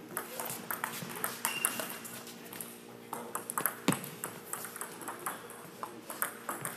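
A badminton rally: sharp clicks of rackets hitting the shuttlecock and short squeaks of shoes on the court floor, the loudest hit about four seconds in, over a steady low hum of the hall.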